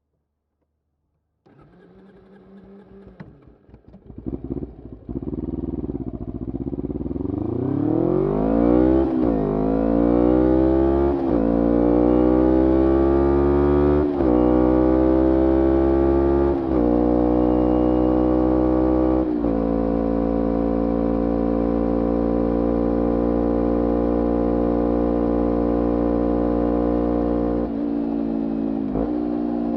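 2011 Kawasaki Ninja 250R SE's parallel-twin engine through a full Graves racing exhaust, accelerating up through the gears: the pitch climbs and drops sharply at each of five upshifts, then holds steady at cruising speed for the last ten seconds.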